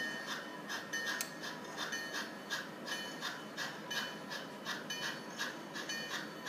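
HO scale model steam locomotive's digital sound decoder playing a slow, even exhaust chuff, about three chuffs a second over a steady hiss, as the engine creeps along the track.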